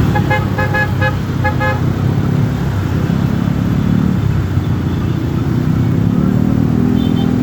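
Basuri musical bus horn playing a quick string of short 'telolet' notes in the first two seconds, over the steady rumble of the bus's engine.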